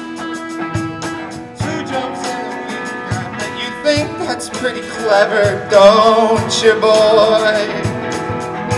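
Live rock band playing: a drum kit keeps a steady beat under sustained guitar and keyboard chords. About four seconds in, male voices come in singing with vibrato, and the song grows louder.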